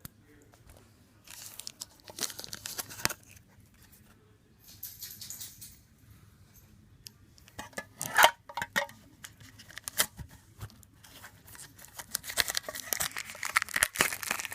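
Packaging being torn and crinkled by hand in short, irregular bursts, with a few sharp clicks and one louder snap about eight seconds in; the crinkling grows busier near the end.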